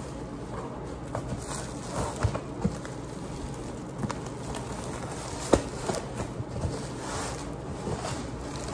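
Hands working at a strapped cardboard box: scattered taps, scrapes and crinkles of cardboard and plastic wrap, with one sharper knock about five and a half seconds in.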